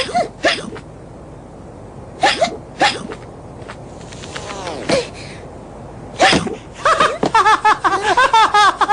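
A cartoon character hiccupping: several short, sharp hics, a tone sliding down in pitch a little after the middle, and another loud hic. Rapid high-pitched laughter follows from about seven seconds in.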